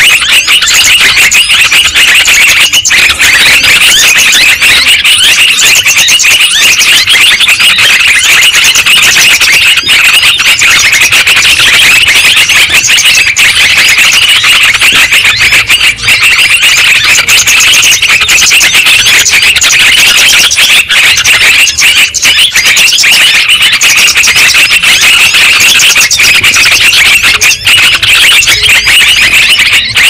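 Yellow-vented bulbuls (trucukan) chattering noisily: a loud, unbroken jumble of many overlapping high chirps from several birds at once. It is a lure call played to draw wild birds down.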